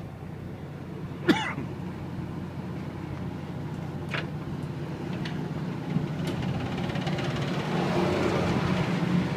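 Tugboat engine running with a steady low hum. A sharp metallic clang with a short ring about a second in, then a few lighter knocks, and a rushing hiss that builds toward the end.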